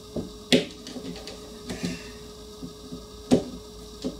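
Hard plastic pieces of a small take-apart toy figure clicking and knocking as they are handled and pressed together on a wooden surface, with two sharper clicks about half a second in and a little past three seconds in, and lighter taps between.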